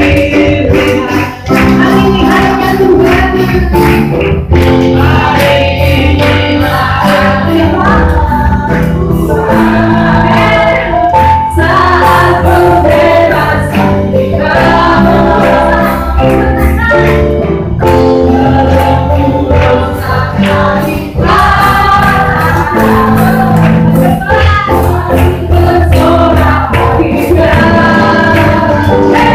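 A church congregation sings a Christian worship song together over loud band music with a steady beat.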